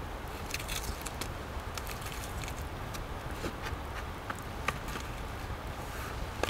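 Small campfire of sticks crackling, with irregular sharp pops and ticks over a steady low rumble of wind.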